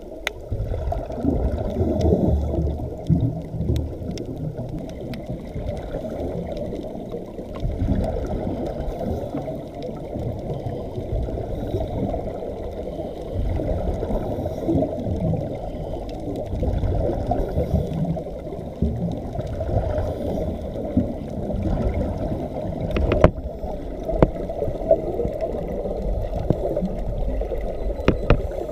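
Muffled underwater rumble and gurgling heard through a camera's waterproof housing: scuba exhaust bubbles and water movement, swelling and falling every few seconds. A few sharp clicks about three-quarters of the way through.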